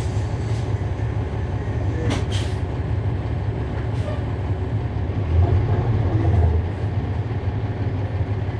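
Cummins ISL9 diesel engine of a 2011 NABI 40-foot transit bus heard from on board, running with a steady low rumble that swells louder for about a second and a half midway as the bus pulls harder. A couple of brief hisses sound in the first half.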